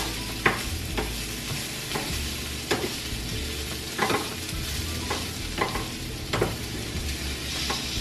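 Sliced red onions sizzling in oil in a frying pan, with a plastic spatula knocking and scraping against the pan about once a second as they are stirred.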